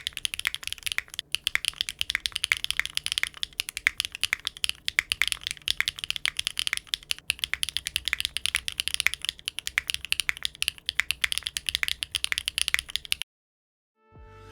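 Fast typing on a mechanical keyboard fitted with HMX Yogurt S linear switches: a dense run of keystroke clacks that cuts off suddenly about a second before the end.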